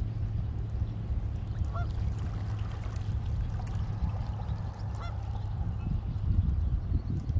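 A steady low rumble, with two short honking calls from a waterbird, about two seconds in and again about five seconds in.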